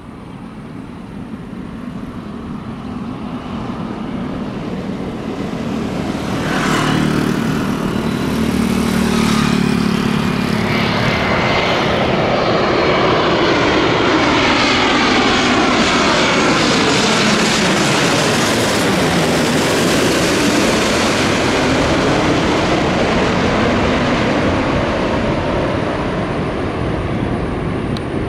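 Boeing 787 airliner's twin turbofan engines on landing approach, growing louder as it comes in low and passes directly overhead, with a sweeping pitch that falls as it passes, then easing off slightly as it heads for the runway.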